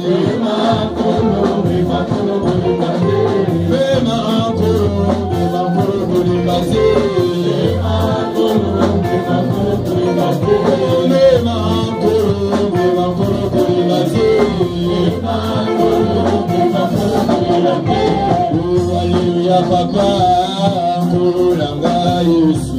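Live gospel worship music: a man singing into a microphone over a band of drums, keyboard and guitar, with a steady bass beat.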